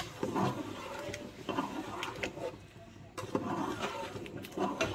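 Ladle stirring thick coconut chicken gravy in an aluminium pot, in several irregular wet scraping strokes, with a sharp click at the start.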